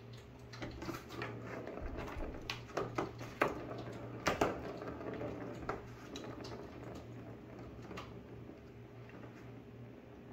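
A cat batting a ball around a plastic ring-track toy: a quick run of clicks and rattles of the ball against the plastic track, with two louder knocks near the middle, thinning out after about seven seconds. A faint steady low hum sits underneath.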